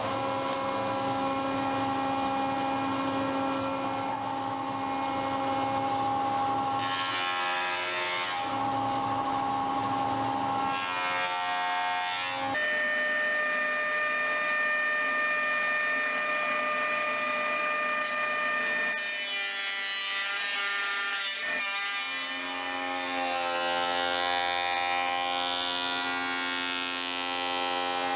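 Stationary woodworking machines running with a steady motor whine: a table saw ripping a board and a jointer planing a rough slab. Several stretches of harsher cutting noise come as the wood is fed through, and the whine shifts in pitch a few times as one pass gives way to another.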